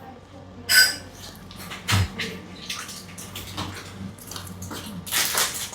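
Short clicks and rustles from small instruments and supplies being handled, with a longer rustle about five seconds in, over a faint steady hum.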